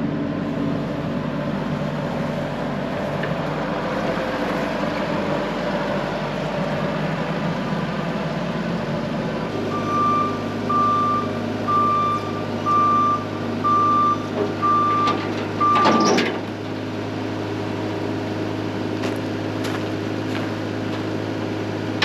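A twin-turbo 12V71 Detroit Diesel V12 two-stroke generator engine running steadily; its note shifts about ten seconds in. A series of about seven evenly spaced electronic beeps sounds for about six seconds, ending in a brief loud sweeping sound.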